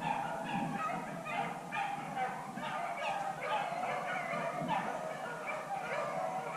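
Beagles baying on a rabbit's trail: short yelping bays repeating about two or three times a second.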